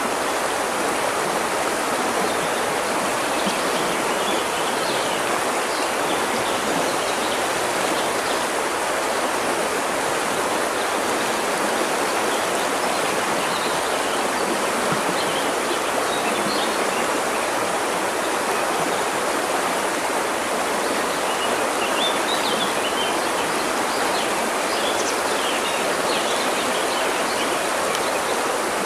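A river's water rushing steadily, with faint bird chirps here and there over it, a little cluster of them about three-quarters of the way through.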